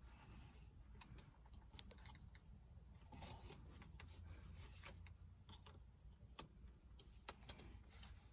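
Faint scattered clicks and scraping of a screwdriver working on a plastic car sun visor as it is handled.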